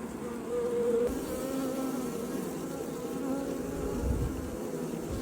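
Bee buzzing in flight, a steady hum that wavers slightly in pitch.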